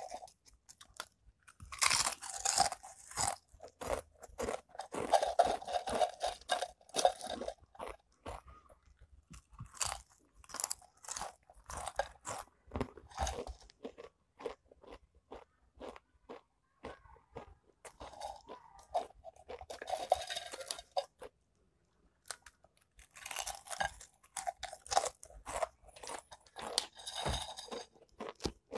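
Potato crisps being crunched and chewed, in bouts of dense crunching separated by quieter pauses.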